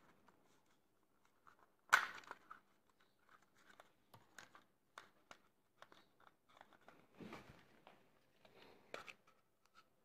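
Faint clicks, creaks and rustles of an SG907 Pro drone's plastic body being handled and worked apart by hand, with one sharper plastic snap about two seconds in and another click near the end.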